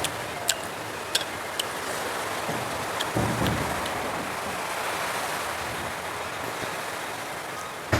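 Close-miked eating sounds: a few sharp wet smacks and clicks from mouth and food over a steady hiss.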